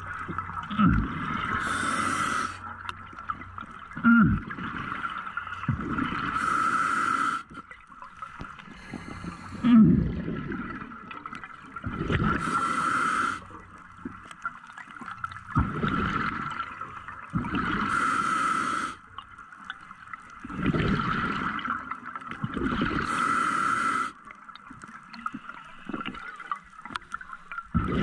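Scuba diver breathing through a regulator underwater: a hissing inhale about every five to six seconds, each followed by a deeper bubbling rush of exhaled bubbles.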